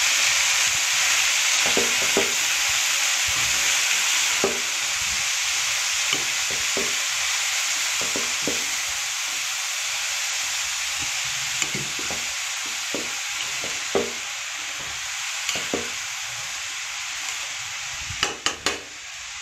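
Mung bean sprouts and sweet potato sizzling steadily in a hot pan while being stir-fried with a spatula, which scrapes and knocks against the pan now and then. Three quick knocks come close together near the end.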